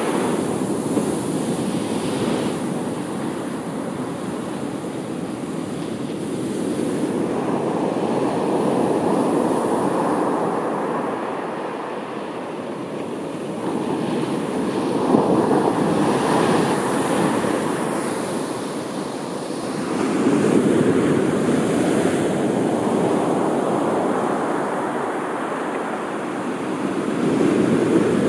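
Sea waves breaking and washing on the shore, swelling and ebbing in slow surges every five or six seconds, with some wind on the microphone.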